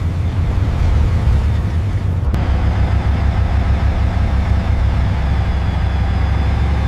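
Tank engine running with a deep, steady rumble.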